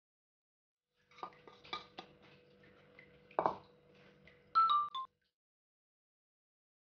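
A plastic bowl and a spatula tapping and clinking against a glass mixing bowl while cornstarch is tipped in and stirred. There are a few light clicks, one heavier knock about midway, and a faint steady hum underneath. Near the end comes a short ringing chime of three falling notes, the loudest sound.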